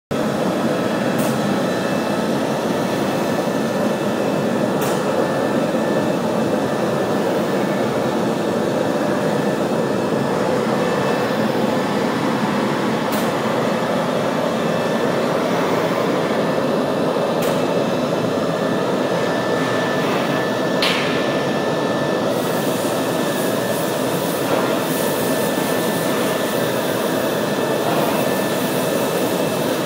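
An automatic CNC panel drilling machine running with a steady mechanical noise and a few sharp clicks as a particleboard panel is fed onto its table. From a little past 20 seconds in, a brighter hiss joins it as the vertical drill bits start boring into the panel.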